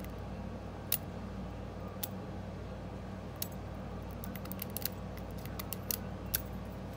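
Lock pick and tension wrench clicking inside the keyway of a solid brass pin-tumbler padlock during single-pin picking: sharp little metallic clicks, a few spaced apart, then a quicker cluster in the second half, over a steady low hum.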